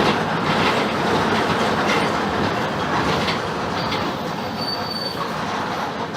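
Mercedes-Benz OF-1721 BlueTec 5 bus running, its diesel engine noise mixed with steady rattling and knocks, and a brief high squeal about four and a half seconds in.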